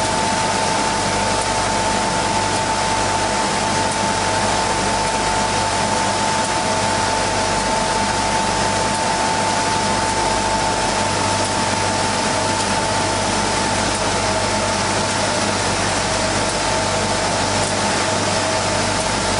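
Industrial wide-belt sanding machine running steadily: a constant rush of noise with a steady high tone in it.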